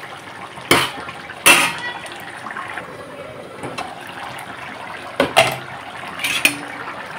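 A metal spoon clinks against a cooking pot several times over the steady sound of spinach simmering in a lot of released water.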